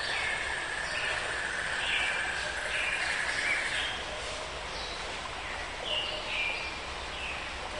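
Birds chirping in short repeated calls over a steady hiss of outdoor background noise, with a thin steady high tone that stops about halfway through.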